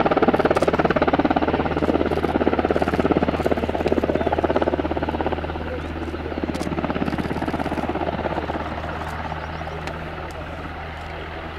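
Military helicopter flying past, its rotor blades beating in rapid pulses over a steady low engine tone. It is loudest for the first five seconds or so, then fades as it moves away.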